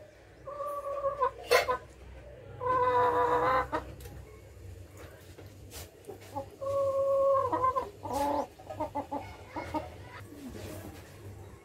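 Several drawn-out pitched animal calls, each up to about a second long, with light clicks and scrapes of a metal spoon spreading filling in a glass pie dish.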